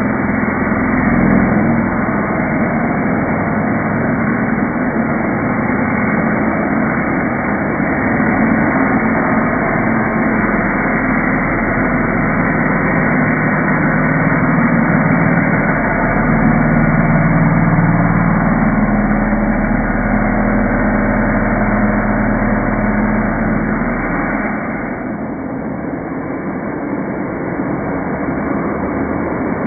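A motor running steadily with a low hum that wavers slightly in pitch, getting a little quieter about 25 seconds in.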